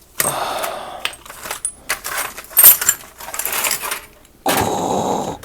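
Small loose metal tools and parts clinking and rattling as they are pushed aside on a work surface, with a sharp clink about two and a half seconds in and a longer scraping slide near the end.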